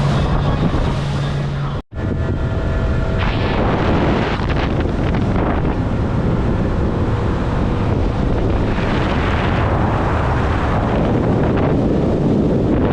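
Fishing boat running fast across the water, with heavy wind buffeting the microphone over the steady rush of engine and water. The sound cuts out for a moment about two seconds in, then carries on just the same.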